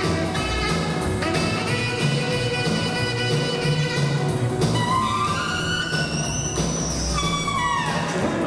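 Rock 'n' roll music playing with a steady beat and held instrumental notes, with a sliding, falling melody line near the end.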